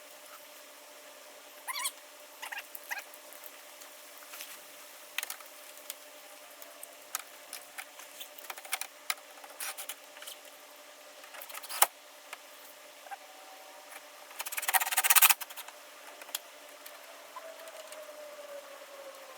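Hand tools and car parts being handled: scattered light clicks, taps and rattles. One sharp knock comes about 12 seconds in, and a brief, loud rasping burst about 15 seconds in.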